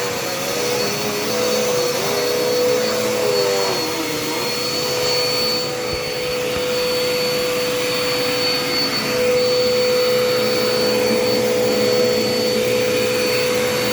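Dirt Devil Endura Reach canister vacuum cleaner running steadily: a constant motor whine over a rush of air, with some lower tones wavering in pitch for a few seconds near the start.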